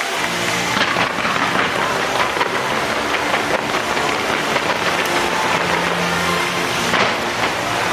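Fireworks crackling and popping as a dense, continuous wash of noise with many sharp snaps.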